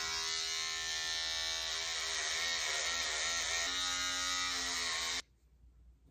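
Electric hair clippers with a guard attachment buzzing steadily while cutting hair, the pitch wavering slightly; the buzz cuts off suddenly about five seconds in.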